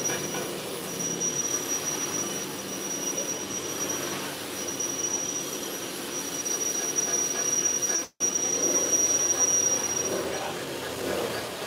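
Belt-driven meatball (bakso) dough machine running with a steady mechanical noise and a thin, high-pitched whine that stops near the end. The sound cuts out for an instant about eight seconds in.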